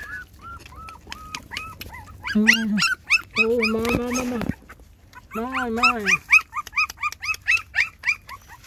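Several young puppies whimpering and yelping in a quick run of short, high-pitched cries. Three longer, lower drawn-out calls break in near the middle.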